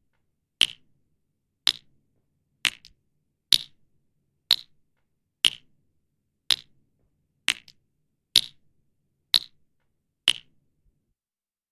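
Water dripping: single drops falling about once a second, each a sharp high plink with a brief tail. Eleven drops in all, the last about ten seconds in.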